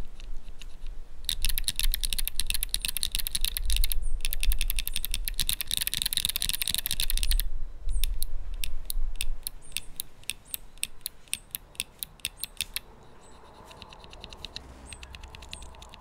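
Typing on a small ortholinear keyboard with Kailh Choc low-profile keyswitches: two fast runs of key presses, then slower separate presses, which turn fainter towards the end.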